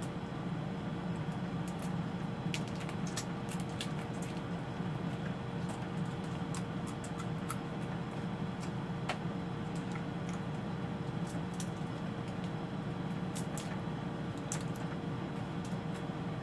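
Small, scattered cracks and clicks of crab shells and legs being broken apart by hand and picked at while eating, over a steady low electrical hum.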